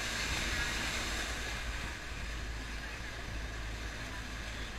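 Small tour boat's motor running with a steady low hum under a loud rushing hiss of water in an enclosed rock tunnel. The hiss drops off about two seconds in as the boat comes out into the open.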